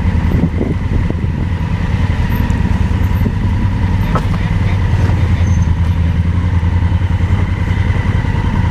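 Motorcycle engine running steadily, with an even, rapid firing pulse.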